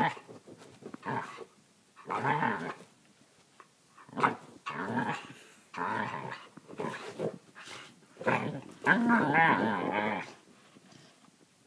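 Australian kelpie making a string of vocal noises in several short bursts with pauses between them, the last one longer and wavering in pitch.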